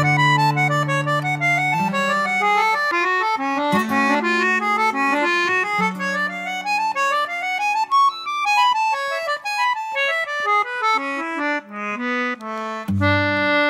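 Instrumental background music: a quick running melody of short notes over long held low notes.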